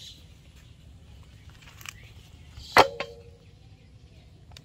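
Light handling clicks, then about three seconds in one sharp knock with a short metallic ring: a stainless steel bowl struck as the skinned chicken is set into it.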